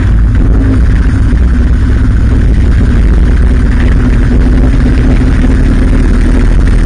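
Motorcycle engine running steadily at road speed, picked up by a microphone on the moving bike, under a loud, continuous low rumble.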